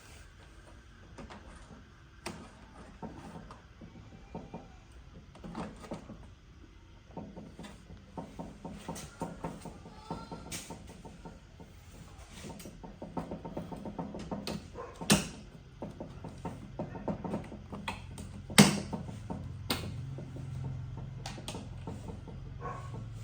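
Scattered clicks, taps and knocks of objects being handled, with two sharper, louder knocks in the second half; a steady low hum starts about two-thirds of the way through.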